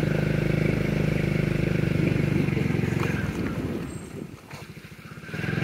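Small motorcycle engine running steadily, its level falling away about three seconds in and picking up again just before the end.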